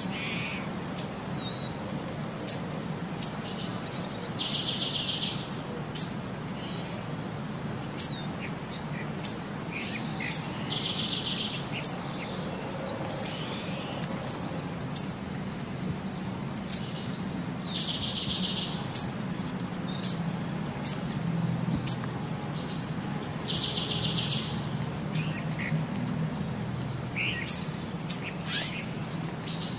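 Birdsong: short, sharp high chirps scattered throughout, and a buzzy trill that recurs about every six and a half seconds, over a steady low hum. It repeats the same way across the changing clips, so it is a looped birdsong backing track rather than the animals on screen.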